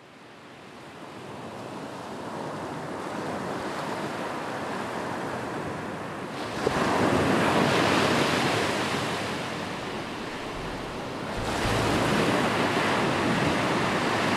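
Ocean surf washing onto a beach, fading in at the start. It swells louder twice, about halfway through and again near the end, as waves break.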